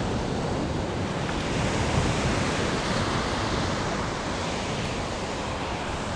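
Ocean surf washing onto a beach: a steady rush of breaking waves that swells a little about two seconds in, with wind buffeting the microphone.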